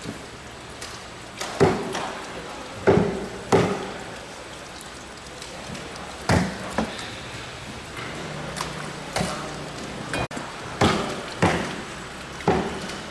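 Irregular sharp knocks and slaps of a knife and wet mahi mahi fillets against a cutting board, several in a row, over a steady background hum.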